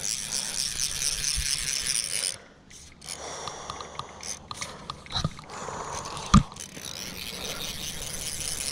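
Fly reel's click-and-pawl drag buzzing as a hooked carp pulls line off. It runs hard for the first couple of seconds, drops away, then comes back more quietly, with a sharp handling thump about six seconds in.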